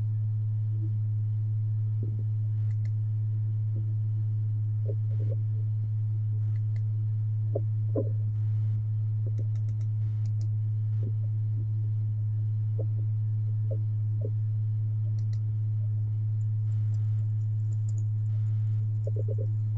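Steady low hum from a YG300 mini LED projector: one deep tone with fainter overtones above it, unchanging throughout. A few faint short clicks are scattered through it.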